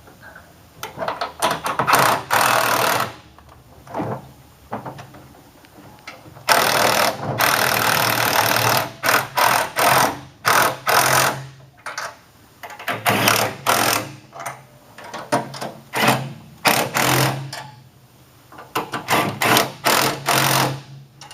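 Handheld power tool spinning in repeated bursts, the longest about two and a half seconds, the rest under a second or two, as it runs down the nuts that fasten the brake booster and clutch cylinder to the firewall.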